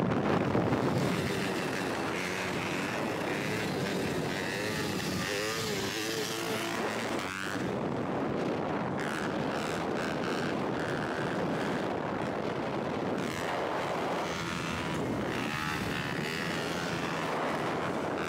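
Dirt bike engine held at steady revs through a long wheelie, its pitch rising and falling slightly with the throttle.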